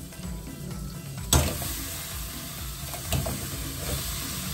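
Shrimp frying in butter in a pan, sizzling steadily, with a sharp knock about a second in and a lighter one about three seconds in.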